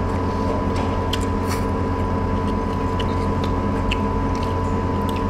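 A steady machine hum with a constant pitch, with scattered light clicks of chopsticks against porcelain bowls while people eat.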